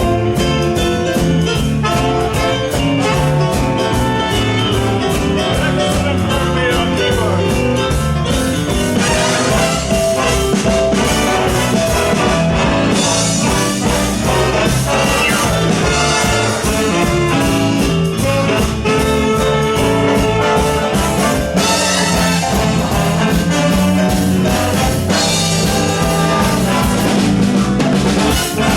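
Big band playing an instrumental swing passage: trumpets and trombones over a steady drum-kit beat.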